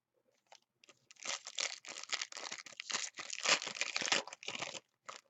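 Foil wrapper of a trading card pack being torn open and crinkled. It is a dense crackle that starts about a second in and stops just before the end.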